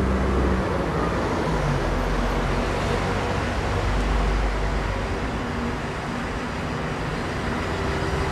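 Steady city street traffic noise: a continuous rumble of vehicle engines and tyres passing by.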